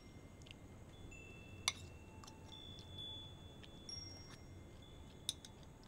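Quiet room tone with a few faint, scattered high chime notes and two soft clicks, one about a second and a half in and one near the end.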